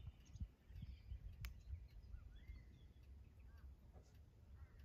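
Near silence: faint outdoor background with a low rumble and a few distant bird chirps, plus one sharp click about one and a half seconds in.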